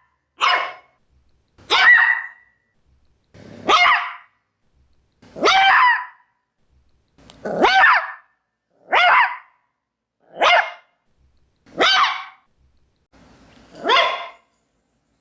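A Maltese dog barking, single sharp barks repeated nine times at about one every one and a half seconds, a couple of them led in by a short low growl.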